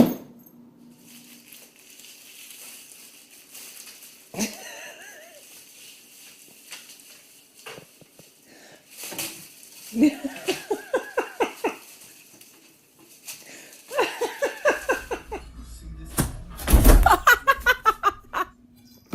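People laughing in bursts of quick ha-ha pulses: one about ten seconds in, another around fourteen seconds, and the loudest near the end.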